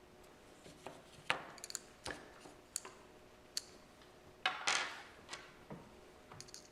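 Irregular light clicks and taps of a small tool and plastic phone parts being handled, with a short scraping rattle about four and a half seconds in.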